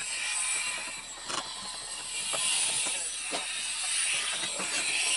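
Small clicks and taps, about one a second, from a screwdriver and metal fittings worked on a model plane's ski mount and wire landing-gear strut, over a steady high hiss.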